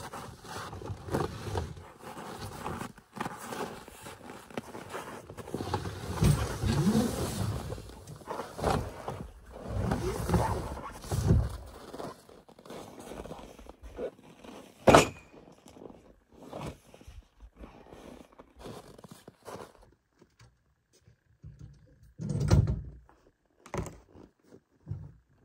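A heavy tent bag being dragged and handled in the snow: rustling and scraping with scattered thumps, a sharp knock about fifteen seconds in, and a dull thump a few seconds before the end.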